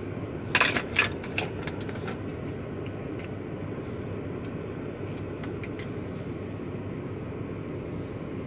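Steady low hum inside a car cabin, with a cluster of sharp plastic clicks about half a second to two seconds in and a few fainter ticks later, as a USB stick is handled and plugged into the dashboard USB port.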